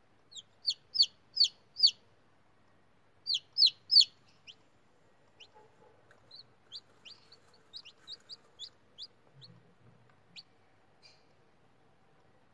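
Newly hatched chicken chicks peeping: high, short, falling peeps. There is a quick run of five loud ones in the first two seconds and three more around the four-second mark, then softer peeps scattered through the rest.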